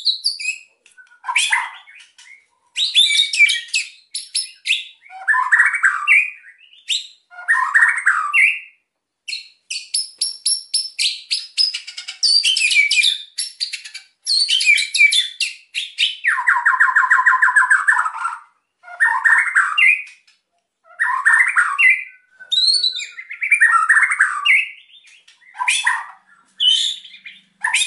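White-rumped shama (murai batu) in agitated full song: bursts of fast clicking rattles and harsh buzzy phrases mixed with whistled notes, separated by short gaps.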